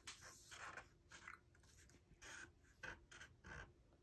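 Sharpie permanent marker drawing on paper in a series of short, faint strokes.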